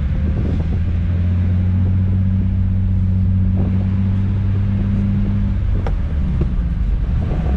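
Lexus IS200's stock 1G-FE inline-six running steadily, heard from inside the cabin as a low hum that shifts slightly about six seconds in.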